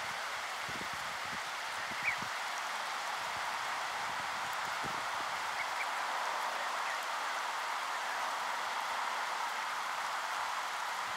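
Faint short high peeps from mallard ducklings feeding in the grass, the clearest about two seconds in, over a steady rushing noise.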